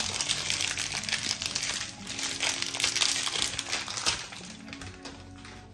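Plastic ink bottle crinkling and crackling as it is handled and tipped into the printer's black ink tank. The clicks come thick and fast and ease off about four seconds in.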